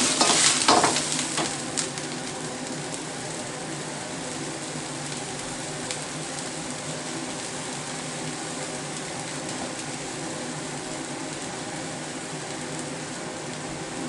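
Sliced chicken and Chinese leaf sizzling in a wok over a gas wok burner, just after water and seasonings have gone in. For the first couple of seconds a metal ladle scrapes and tosses the food; after that the wok sits on the flame with a steady sizzle.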